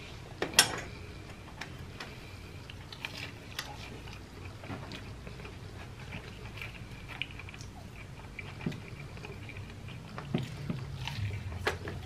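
Close-miked chewing and mouth sounds of a person eating, with scattered small clicks and one sharper click about half a second in.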